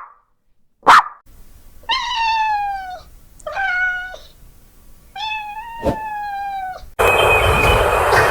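A single short bark, then a domestic cat meowing three times, each meow about a second long and falling in pitch. Near the end the sound cuts abruptly to a loud, steady noise.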